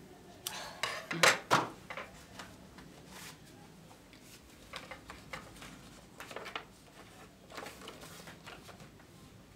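Handling noises on a desk: a cluster of sharp clicks and knocks of small hard objects about a second in, then scattered softer ticks and rustles of paper and cardboard being handled.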